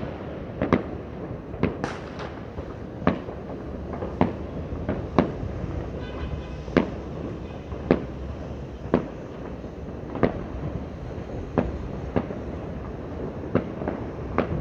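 New Year's fireworks and firecrackers going off across the city: sharp bangs at irregular intervals, about one a second, over a steady haze of more distant bangs.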